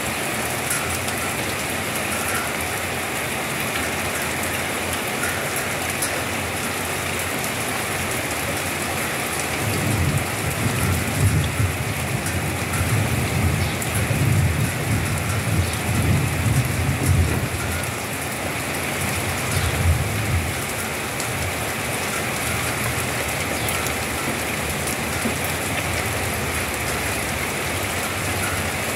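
Steady rain falling. About a third of the way in, a low rumble of distant thunder rolls in swells for some ten seconds, then fades back under the rain.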